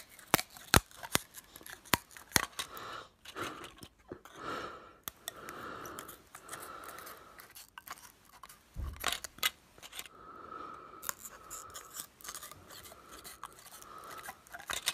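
Scissors cutting through a plastic DVD disc, a series of sharp, irregular snips and cracks as the disc is cut into pieces.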